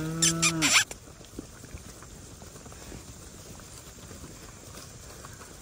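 A woman's long, drawn-out call to cattle, held on one pitch, ends about a second in; after that only faint pasture background remains.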